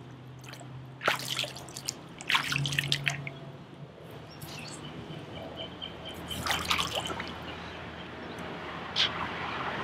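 Pool water splashing and dripping in several short bursts as a small plastic test-kit collection tube is dipped into the pool and lifted out to fill it.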